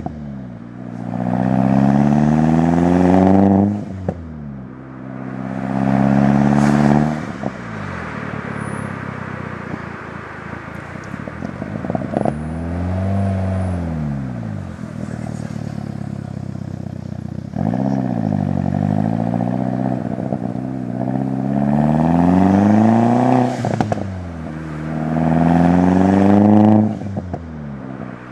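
Turbocharged 1.8-litre four-cylinder of a 2002 VW GTI, heard through a 3-inch turboback exhaust with a high-flow cat, revving up repeatedly. Each climb in pitch ends in a sudden drop, with a couple of shorter rise-and-fall blips and a steadier, lower-revving stretch around the middle.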